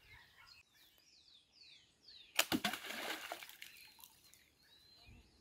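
A slingbow fishing shot into water: a sharp snap about halfway through, then a splash lasting about a second. Birds chirp faintly in the background.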